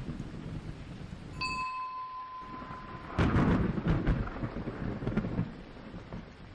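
Thunder rumbling. About a second and a half in, a single bell-like chime rings out clearly and holds for under two seconds. Then a loud thunderclap breaks about three seconds in and rolls away over the next couple of seconds.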